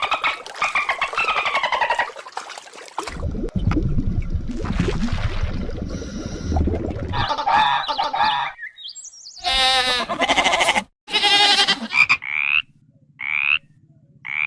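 A run of different animal calls spliced one after another. The last few seconds are a frog croaking: short calls about a second apart over a faint low hum.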